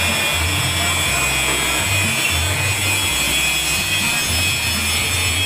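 Milling machine running, its end mill cutting a thick plastic plate, making a steady machining noise over an uneven low motor hum.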